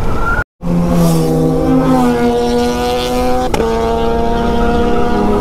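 Yamaha FZ25's single-cylinder four-stroke engine running at highway cruising speed, heard over wind rush. Its note drops in pitch in steps as the bike slows, with a brief click at the second step. The sound cuts out for a moment about half a second in.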